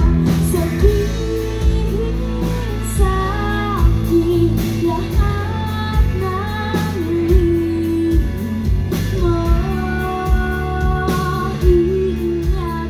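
Live band playing a song: a singer's voice carries the melody over guitar and a steady drum beat.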